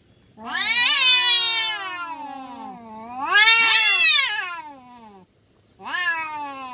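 Two domestic cats in a fighting standoff, caterwauling: three long, drawn-out threat yowls that rise and fall in pitch, with short breaks between them.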